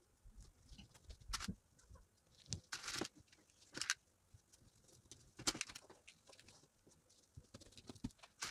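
Faint rustling and handling of crinkled fabric pieces on a table as they are smoothed and pinned, in short scattered bursts.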